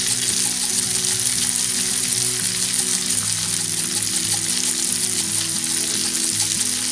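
Butter and bacon fat sizzling steadily in a cast-iron pan heaped with broccolini, frying briskly.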